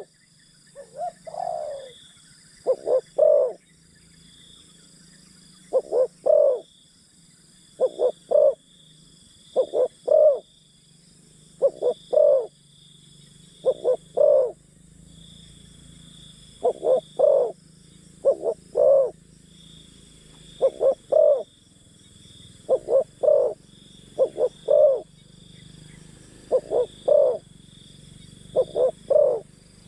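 Spotted dove cooing over and over, each phrase a quick group of two or three low coos, repeated about every two seconds.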